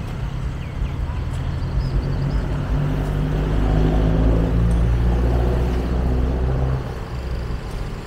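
Street traffic: a motor vehicle's engine running close by, a low steady hum that grows louder over the first few seconds and drops away about seven seconds in.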